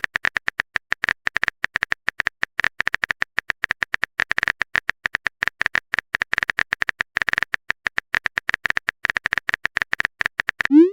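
Rapid phone-keyboard typing clicks, a texting sound effect, about ten quick clicks a second with short pauses. Right at the end a rising tone begins, the start of a message alert.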